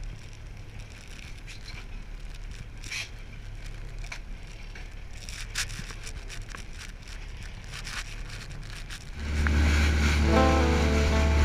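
A low steady hum from the fishing boat with scattered small clicks and rustles; about nine seconds in, music with a heavy bass line and held notes comes in loudly over it.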